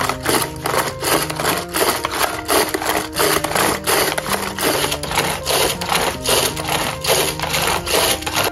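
Pull-cord food chopper worked in quick repeated pulls, about two a second, each pull a short whir as the blades spin through a thick batter in its plastic bowl. Background music runs underneath.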